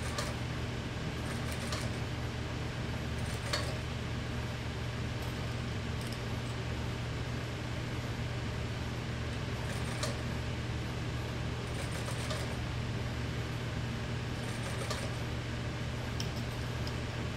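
Industrial sewing machine running with a steady motor hum, with short clicks now and then as the fabric is fed and stitched.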